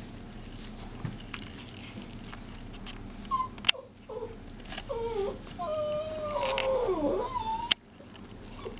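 Puppies whimpering and whining in play, a run of high cries that slide in pitch, the longest about two seconds and falling at its end. Two sharp clicks cut in along the way.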